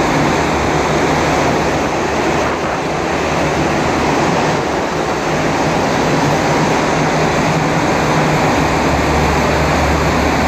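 Steady roar of wind and road noise on the open top deck of a bus driving through a road tunnel, with a steady low hum underneath that swells slightly near the end.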